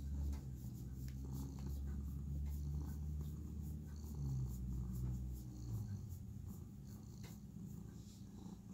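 Long-haired tabby cat purring close to the microphone, a low steady rumble that fades out about five and a half seconds in, with scratchy rustling from hands stroking its fur.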